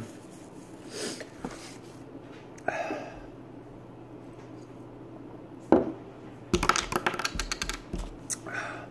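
Scattered handling noises over a low steady hum: a sharp knock a little past halfway, then a quick run of clicks and bumps, with a few short breathy puffs.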